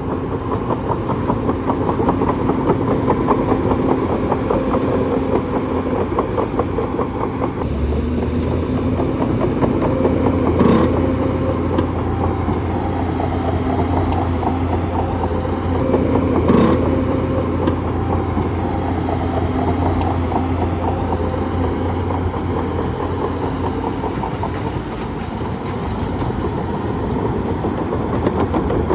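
Bulldozer's diesel engine running steadily under a low hum, with two sharp metallic clanks, one about eleven seconds in and one about seventeen seconds in.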